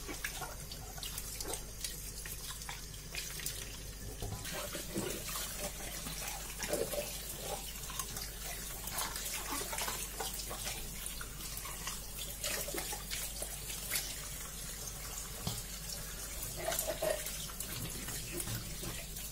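A kitchen tap runs steadily into a stainless steel sink while hands rinse and turn over red peppers under the stream, with irregular small splashes and wet handling sounds.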